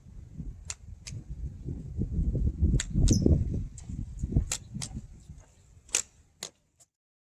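Gusty wind buffeting the microphone as a low, uneven rumble, with about eight sharp clicks scattered through it. The sound cuts off suddenly near the end.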